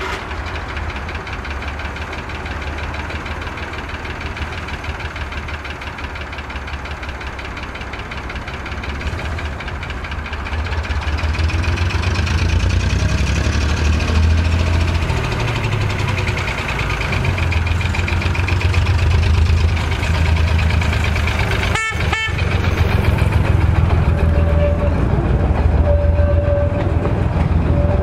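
Engine of a small narrow-gauge internal-combustion locomotive running as it comes along the track, a steady low rumble that grows louder from about ten seconds in as it draws close. The sound breaks off for a split second about three quarters of the way through.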